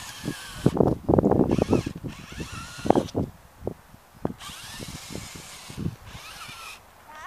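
Electric drive motor and gearbox of a 1:18 HB-P1801 rock-crawler RC car whirring in spurts as it is driven over lumpy dirt, with a run of knocks and clicks about a second in and single knocks after.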